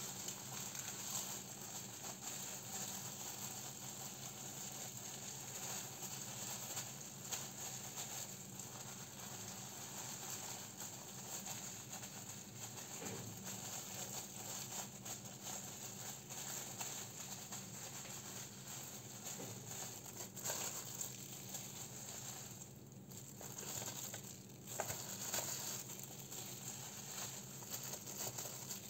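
Clear plastic food-prep gloves crinkling and soft patting as sushi rice is pressed and spread over a nori sheet on a bamboo rolling mat. Irregular small rustles over a steady low hum.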